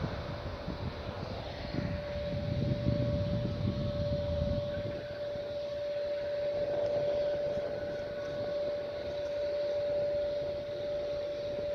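Jet airliner engines heard across the airfield: a low rumble that dies away about four and a half seconds in, under a steady high engine whine that holds throughout.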